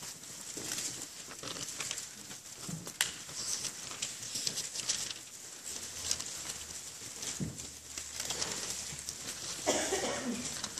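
Congregation turning Bible pages: irregular paper rustling and flipping, with scattered small clicks and knocks from the pews and a louder rustle near the end.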